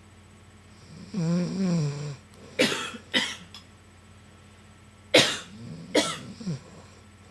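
A sleeping woman snoring: one drawn-out, wavering snore about a second in, then two pairs of short, sharp cough-like bursts, the loudest about five seconds in.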